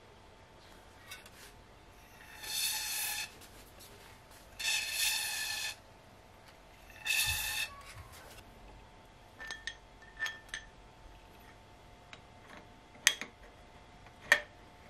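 Aerosol can of Fluid Film AS-360 rust-protection spray hissing in three short bursts through its extension straw into the bicycle's headset cup. Near the end come a few light ticks and two sharp clicks as the fork is handled.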